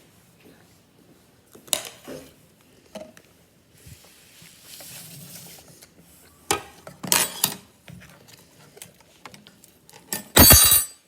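Cutlery clinking and scraping against dishware a few times as noodles are served and eaten, with a short, loud burst of noise near the end.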